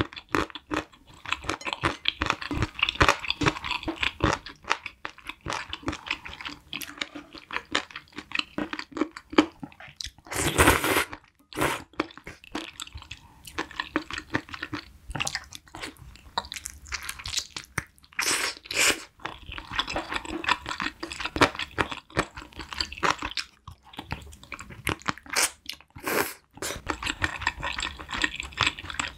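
Close-miked chewing and crunching of spicy braised chicken, with dense small mouth clicks. A few short, louder noisy bursts stand out about a third of the way in, around two-thirds through, and near the end.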